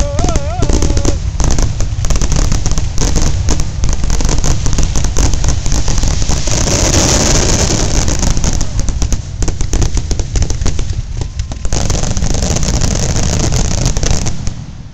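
Fireworks going off in a dense, rapid barrage of bangs and crackles, with a hissing crackle swelling about halfway through. The barrage stops abruptly near the end.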